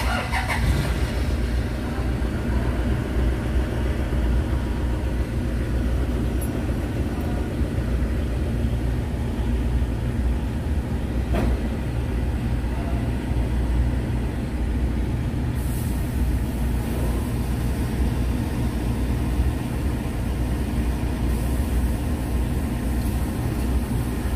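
Toyota Fortuner engine starting right at the start and then idling steadily with a low, even rumble, running on a newly replaced alternator that is now charging. A single sharp click sounds about halfway through.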